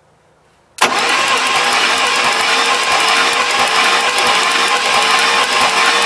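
Starter motor cranking the 1971 International Harvester bus's eight-cylinder engine with all spark plugs out, for a compression test on cylinder two. The cranking starts suddenly about a second in and runs as a steady fast whir whose pitch creeps slowly up.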